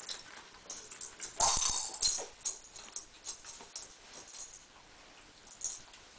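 Kittens playing with toys on a tile floor: irregular scratching, clicking and rattling as paws and claws scrabble and a wicker toy and ball knock and skid across the tiles. The loudest burst comes about a second and a half in, then the clicks thin out.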